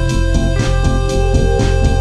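Background music with a steady beat and sustained chords, changing chord about half a second in.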